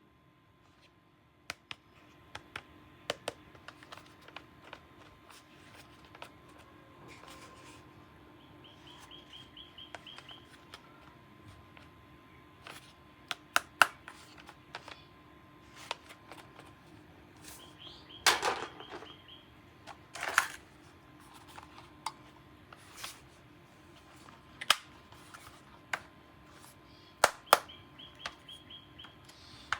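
Plastic toy guns being handled: irregular sharp clicks and snaps of their plastic parts, with three short bursts of rapid ticking.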